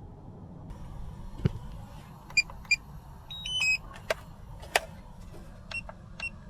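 Electronic beeps from DJI Avata 2 FPV gear: two short beeps, then a falling three-note beep sequence, among a few sharp clicks and knocks over a steady low rumble.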